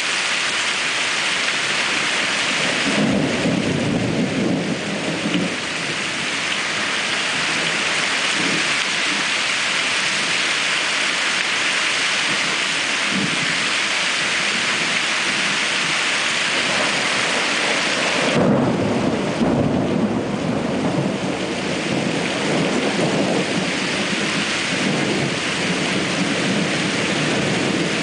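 Heavy rain falling in a steady hiss during a storm, with low rumbles of thunder about three seconds in and again past the midpoint.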